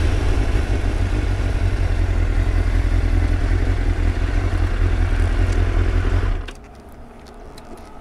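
Motorcycle riding at speed, its engine mixed with heavy wind rush on the microphone. About six and a half seconds in it cuts off abruptly to a much quieter background.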